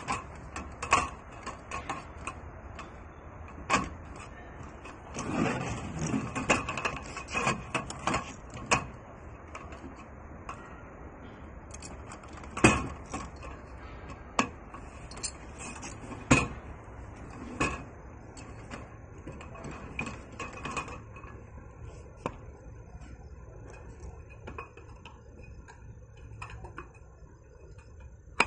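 Aluminium folding camping table being handled: irregular metal clicks, clacks and knocks as its folding leg brackets are worked and the frame and top panel are moved, with a denser stretch of rattling about five to eight seconds in. The knocks grow sparser and quieter in the last several seconds.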